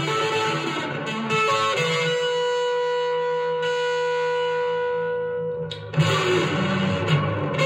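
Electric guitar played through a Fuzz Face-style germanium fuzz pedal (hand-picked AC125 transistors) into a Vox AC10 valve amp. A few notes are played, then one note is held for several seconds and fades away. Playing starts again near the end.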